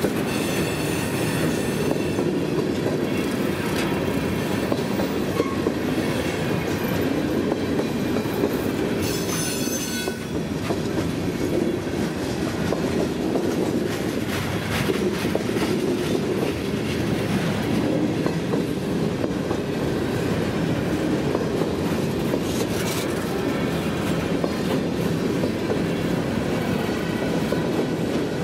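Freight cars of a CSX train rolling past close by: a steady rumble of steel wheels on the rails, with a few brief high-pitched wheel squeals, about a second in, near ten seconds and again around twenty-three seconds.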